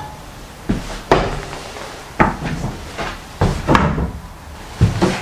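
Footsteps on a bare hardwood floor: a string of irregular knocks and thuds, roughly one or two a second.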